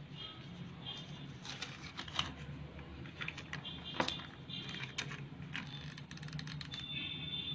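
A sheet of baking paper being handled and pressed onto a cut-paper frame: crisp rustles with irregular sharp clicks and taps, the loudest about four seconds in, over a steady low hum.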